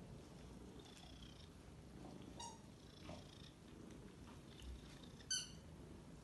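Domestic cats purring faintly, a low steady rumble. One brief high-pitched squeak stands out about five seconds in.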